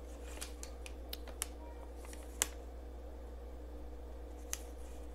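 Faint scattered ticks and light rustling of a paper receipt being handled, with a sharper click about two and a half seconds in, over a low steady hum.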